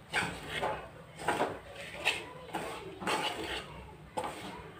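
Spoon scraping and stirring grated coconut and chilli powder as it dry-roasts in a metal pan, in uneven strokes about once or twice a second.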